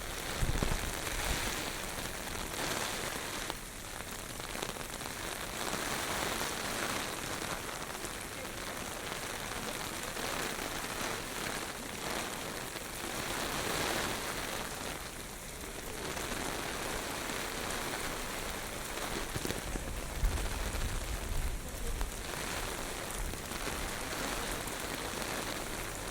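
Typhoon rain and gusty wind: a steady hiss of heavy rain that swells and eases every few seconds as gusts come through, with low rumbles of wind hitting the microphone about half a second in and again about twenty seconds in.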